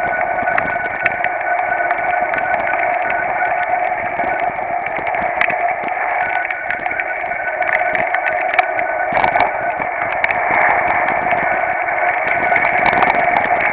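Mountain bike riding on a wet, rutted dirt road, heard through a bike-mounted camera: a steady muffled rush with scattered knocks and rattles from bumps in the road.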